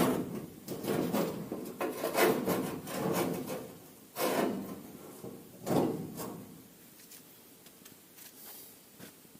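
Irregular rubbing and scraping strokes with a few knocks, as of hands working on parts. The strokes die down about seven seconds in.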